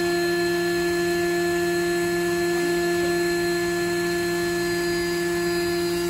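Electric air pump running steadily, inflating a vinyl inflatable pool, with an even motor hum.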